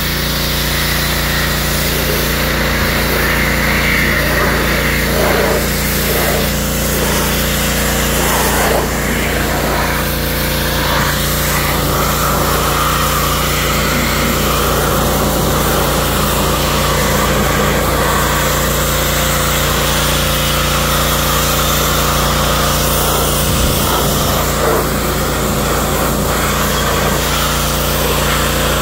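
Pressure washer running steadily, with the hiss of its high-pressure spray striking the car's side panels and lower body.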